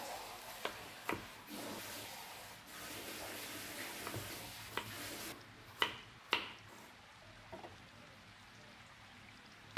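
Kitchen knife slicing an onion on a wooden cutting board: about six sharp, irregularly spaced knocks as the blade goes through and strikes the board, the two loudest a little past halfway. A steady hiss underneath stops about halfway through.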